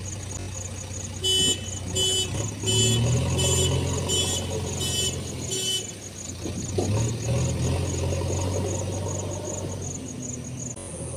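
Diesel engine of a loading machine running steadily, with a reversing alarm beeping seven times in an even rhythm, about 0.7 s apart, during the first half.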